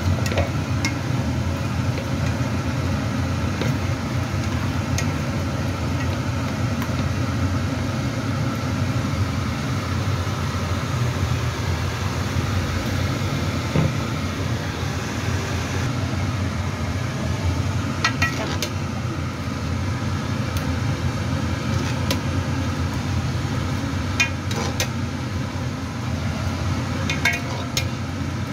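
Steady low mechanical rumble, with a few light clinks of metal utensils against a pot in the second half.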